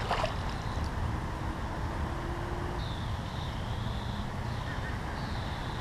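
Steady low outdoor background rumble, with a faint high, thin sound about three seconds in.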